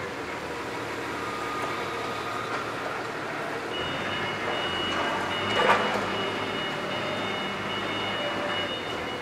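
Railway vehicle moving slowly, with a thin steady high squeal starting about four seconds in and a brief louder hiss near the middle.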